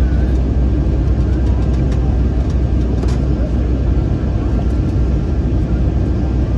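Steady roar inside the cabin of an Airbus A321 descending on approach, mostly low-pitched engine and airflow noise.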